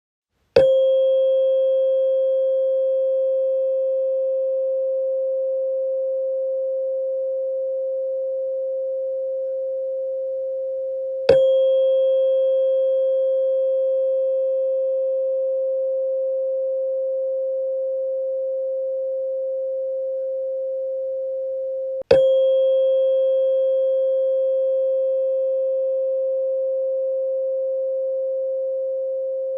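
Tuning fork struck three times, about eleven seconds apart. Each strike gives a short bright attack and then a steady pure tone that rings on and slowly fades, while fainter higher tones die out within a few seconds.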